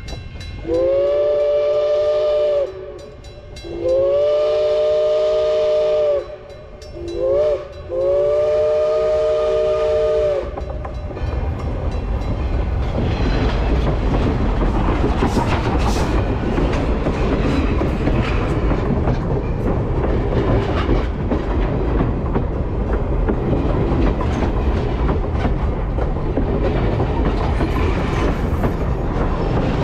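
Steam locomotive's chime whistle blowing two long blasts, a short and a long, the grade-crossing signal. Then the train passes with a loud, steady rumble and clatter of wheels on rail.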